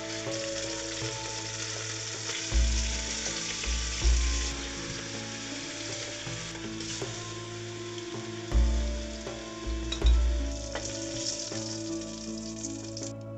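Skinless chicken leg quarters sizzling steadily as they sear in hot oil in a stainless steel pot, the pieces being turned and lifted with metal tongs.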